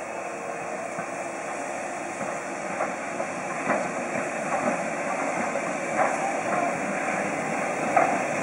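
Steam locomotive and its coaches approaching, a steady hiss of steam and running noise growing louder as it nears, with a few sharp knocks.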